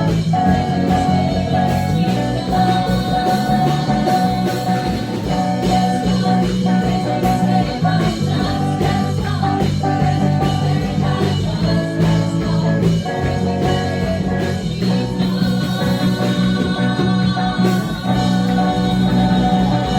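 Band music with electric guitar and a steady beat, with singing.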